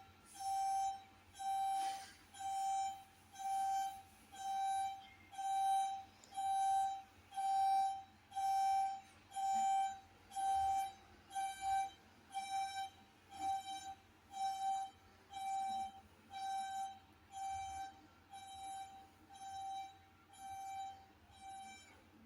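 Car alarm beeping on one steady pitch, about one and a quarter beeps a second, each beep under half a second long, going on and on and growing slightly fainter toward the end.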